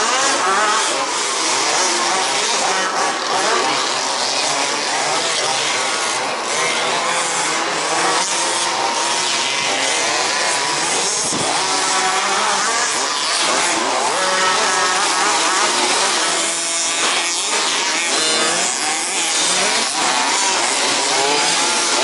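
Several 1/5-scale petrol RC buggies racing, their small two-stroke engines buzzing and revving over one another. Their pitches rise and fall constantly as the cars accelerate and brake.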